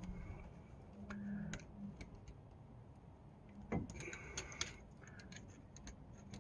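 Faint metallic clicks and ticks of needle-nose pliers and a wire parking-brake shoe spring against the steel brake shoe as the spring is worked back into place, with one louder knock a little under four seconds in.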